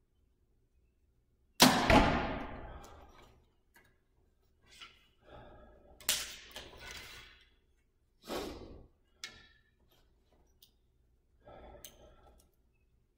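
A 2014 PSE Dominator compound bow is shot: a sudden loud crack about one and a half seconds in, with a second hit just after, the arrow striking the target, and a ring that dies away over about two seconds. Softer clicks and rustles follow as the next arrow is handled and nocked.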